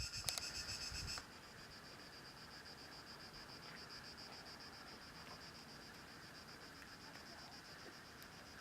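Insects chirping outdoors in a steady, rapid pulsing rhythm. For about the first second it is louder, with a low wind rumble on the microphone, and then it drops abruptly to a quieter, even chirring.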